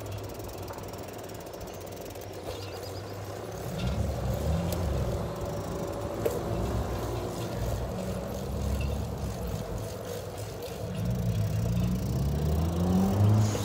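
Wind rumbling on the microphone with rolling road noise while a bicycle is ridden on asphalt, louder from about four seconds in and again near the end.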